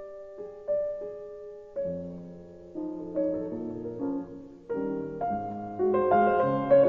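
Background piano music: a few slow, single notes at first, filling out into fuller chords and growing louder about five seconds in.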